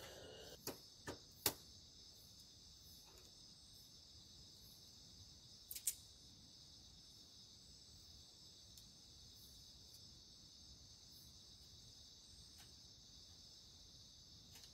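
Steady high chirring of night insects, with a few sharp clicks: three in the first second and a half, two close together about six seconds in.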